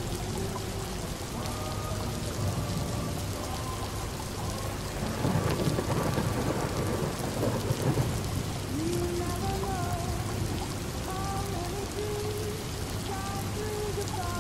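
Steady rain pattering against windows, with a roll of thunder that swells about five seconds in and dies away about three seconds later. Faint muffled pitched tones drift underneath.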